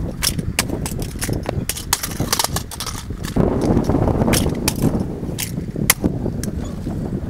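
Kick scooter clattering on pavement: many sharp clicks and knocks from the wheels and deck, with a louder stretch of rolling rumble about three and a half seconds in.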